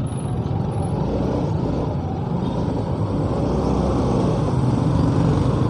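Motorcycle engine running at low speed with road noise, in slow, dense traffic with the engines of nearby cars and scooters around it.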